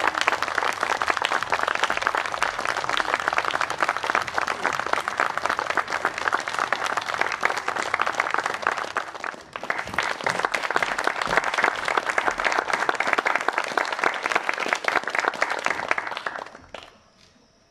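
Small audience applauding with steady clapping that dies away near the end.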